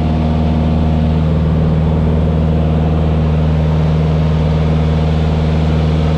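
Small propeller aircraft's piston engine and propeller droning steadily, heard from inside the cabin, with a deep, unchanging hum.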